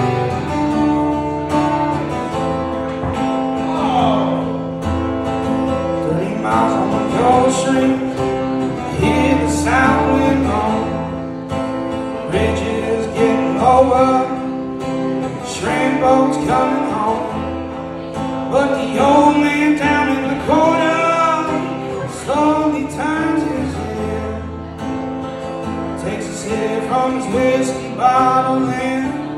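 Music: an acoustic guitar playing a country-rock song while a man sings into a microphone.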